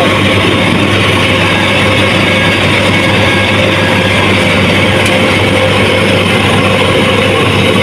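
Engine of a rice combine harvester running steadily, a loud unbroken hum.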